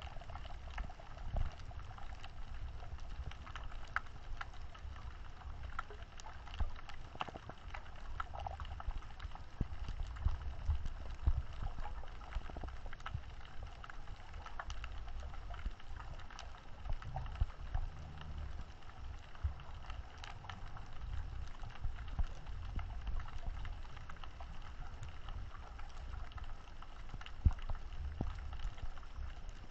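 Underwater sound picked up by a GoPro inside its waterproof housing, muffled: a low rumble of water moving past, with many scattered sharp clicks and crackles.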